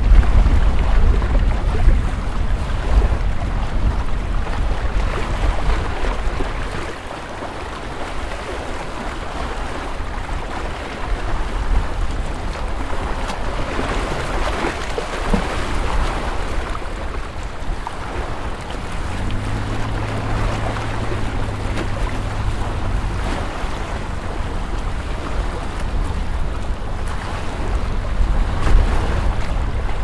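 Lake water washing against the shore in an even hiss with slow swells. Wind rumbles on the microphone for the first several seconds, then drops away. A low steady hum sounds for a few seconds past the middle.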